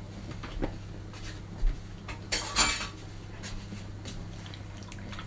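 A metal spoon knocking against a glass mixing bowl while raw chicken is turned in a wet marinade. There are a few separate knocks, the loudest cluster about halfway through, over a low steady hum.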